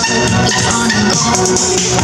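Loud music with a busy percussive beat and sustained pitched notes.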